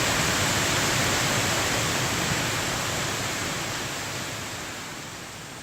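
Waterfall on Brasstown Creek: a steady rush of falling water that grows gradually quieter toward the end.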